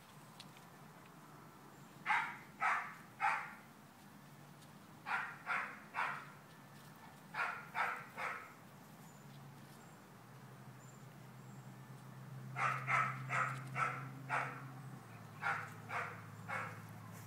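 Dog barking in quick runs of about three sharp barks, with a longer run of about six barks past the middle.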